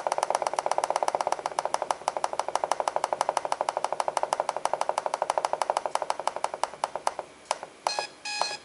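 Spartus Sigma III model 1029 alarm clock cycling through its alarm-time setting: a fast, even run of electronic clicks, about ten a second, that thins out near the end, followed by two short beeps.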